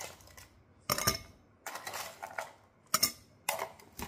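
Crushed ice tipped from a plastic tub into a tall glass, the pieces dropping in and clinking against the glass in several separate sharp clatters about a second apart.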